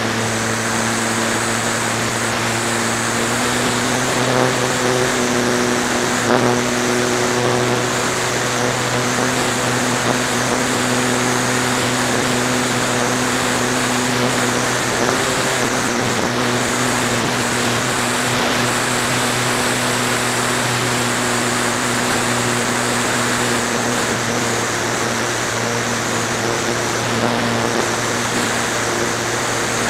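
Flyzone Calypso RC plane's electric motor and propeller running steadily in flight, picked up by a camera mounted on the airframe, as a steady pitched drone over a wide rush of air.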